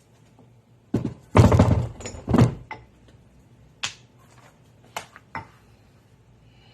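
Leather punch struck with a mallet, punching through leather: a quick run of heavy thunks in the first couple of seconds, then a few single, sharper knocks.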